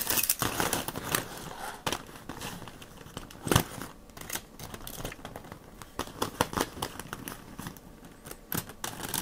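Plastic LEGO Technic track links clattering and clicking as loose track chains are handled on a tabletop and fitted onto the tracked loader's wheels, in a string of irregular clicks, the sharpest about three and a half seconds in.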